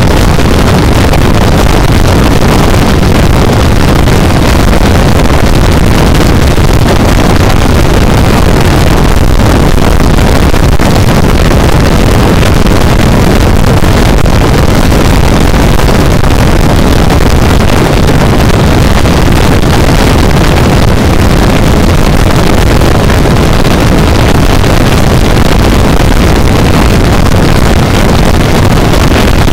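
Honda CB400 motorcycle running steadily at road speed, with loud, constant wind rush on the microphone over the engine's drone.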